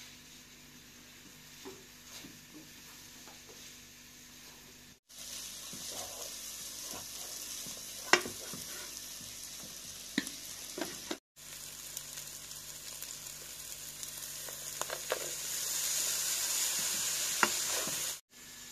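Minced meat and rice filling sizzling as it fries in oil in a pot while a wooden spoon stirs it, knocking against the pot a few times, with the sharpest knock about eight seconds in. The sizzle breaks off briefly twice and is louder after each break.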